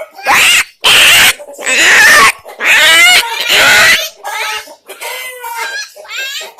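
Five loud, harsh animal squeals in quick succession, each about half a second long, followed by quieter chicken clucking.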